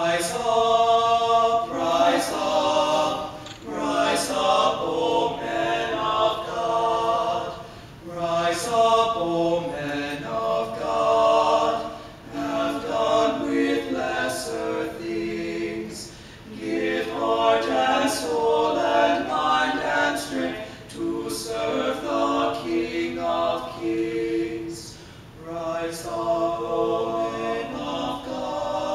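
A barbershop quartet of four teenage male voices (lead, tenor, baritone and bass) singing close four-part harmony a cappella. The song is sung in phrases broken by short pauses.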